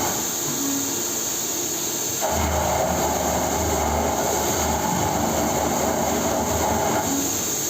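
CNC milling machine running steadily. A louder cutting noise drops away at the start, comes back a little after two seconds, and falls away again near the end, as the cutter goes in and out of the material.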